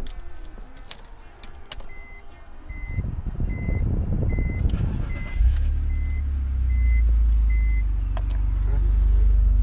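A few clicks, then a warning chime beeping steadily while the starter cranks the BMW 325i's M54 inline-six for about two seconds. The engine catches about five seconds in and settles into a steady idle.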